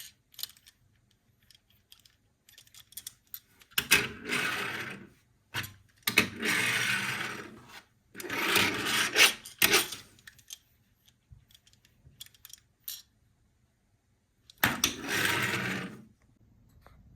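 Plastic toys being handled: scattered light clicks and taps, then four stretches of rubbing or rolling noise, each a second or two long.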